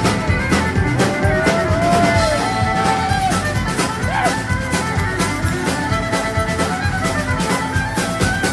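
Music with a steady beat and a melody line, with bowed-string and brass-like tones over drums.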